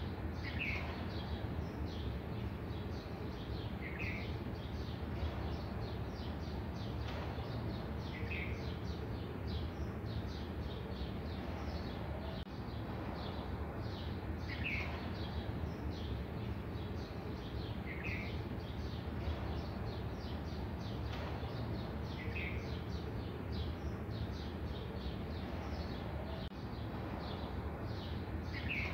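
A bird giving a short call every few seconds, with quick high chirping all the while over a steady low hum.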